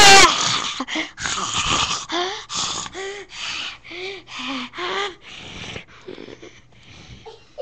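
A person's voice in a run of short breathy bursts, about two a second, each with a brief rise and fall in pitch. The loudest burst comes right at the start, and they fade out over the last couple of seconds.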